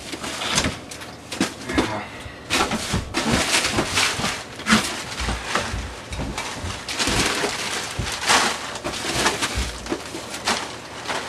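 Frozen food packages rustling and knocking in a chest freezer as someone digs through it, in an irregular run of crinkles and thuds.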